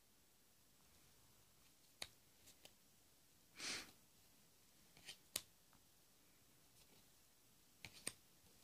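Lenormand cards being handled and flipped against near silence: scattered light clicks as cards are moved and set down, one short swish of a card sliding over the deck a little before the middle, and a pair of clicks near the end.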